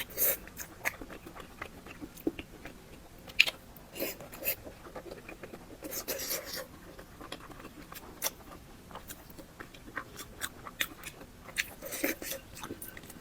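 Close-miked chewing and biting of fatty pork belly: irregular wet mouth clicks and squelches, with a sharper bite about three and a half seconds in.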